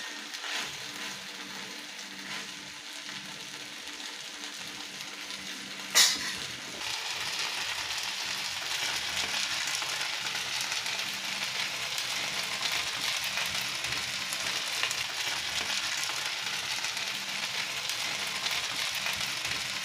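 Food sizzling in a pan on the stove, a steady hiss. A sharp knock comes about six seconds in, after which the sizzling is louder.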